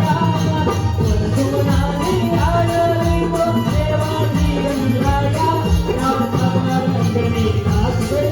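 Marathi devotional folk music: a steady drum beat with jingling percussion under a gliding melody line, between sung verses of a Ganesh vandana.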